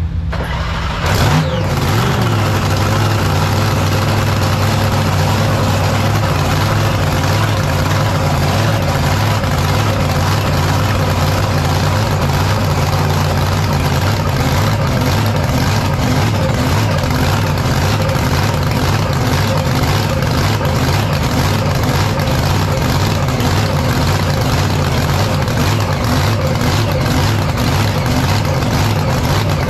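Drag boat's exposed racing V8 engine running on the trailer: a quick rev about a second in, then a steady idle.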